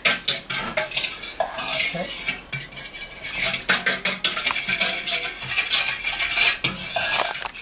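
Metal spoon stirring briskly in a stainless steel mixing bowl, scraping and clinking rapidly against the bowl, to dissolve yeast and sugar in hot water.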